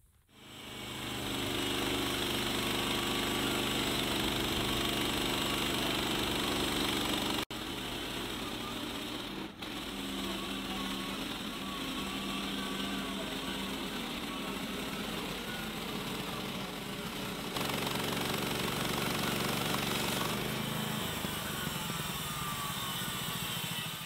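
Gas engine of a Woodland Mills HM130 Max portable band sawmill running at a steady speed. The sound breaks off and shifts abruptly a few times, about a third of the way in and again later.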